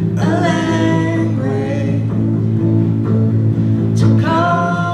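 Live acoustic song: acoustic guitar and double bass playing under sung vocals, with one sung phrase at the start and another about four seconds in.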